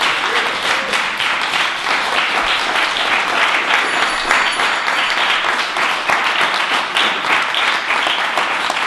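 An audience applauding, many hands clapping at once without a break.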